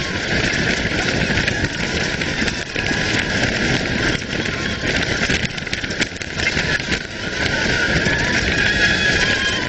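Roller coaster train running at speed, heard from an onboard camera: steady loud wind noise on the microphone mixed with track rumble.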